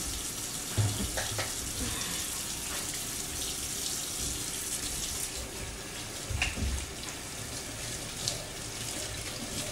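Kitchen faucet running steadily into a stainless-steel sink basin while hands are washed and rubbed under the stream, with a few brief thumps.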